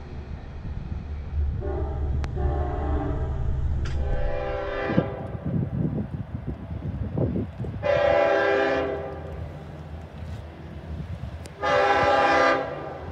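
Long Island Rail Road diesel locomotive sounding its multi-tone horn in several separate blasts as it approaches, over the low rumble of the train. The last blast, about twelve seconds in, is the loudest.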